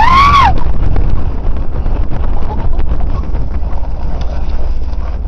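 Dodge Durango's 5.9-litre V8 running as the truck drives through snow, with a low rumble, wind buffeting the microphone, and many small knocks and thuds as the body jolts. A brief rising-and-falling yell from an occupant at the very start.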